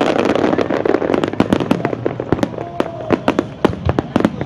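Fireworks exploding in a dense barrage of many rapid sharp pops and crackles over a loud noisy wash, which thins out after about two seconds, leaving scattered pops.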